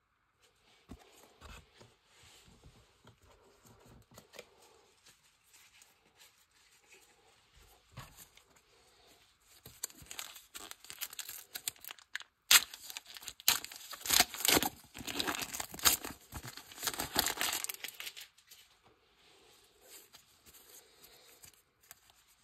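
Foil trading-card booster pack being torn open and its wrapper crinkled. There is soft handling at first, then loud tearing and crinkling from about ten seconds in to about eighteen, then quieter rustling.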